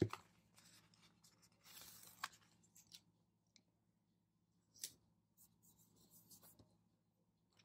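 Faint rustling and rubbing of paper planner stickers and sticker sheets being handled, with a sharp tap at the start and another about five seconds in.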